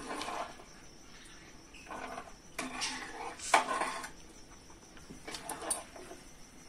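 Metal ladle stirring thick curry gravy in a large metal kadai, swishing through it and scraping and knocking against the pan in several short bursts. The curd-added gravy is being stirred continuously until it comes to the boil.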